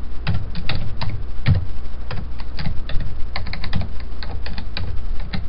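Computer keyboard keys being typed, an uneven run of quick clicks, over a steady low hum.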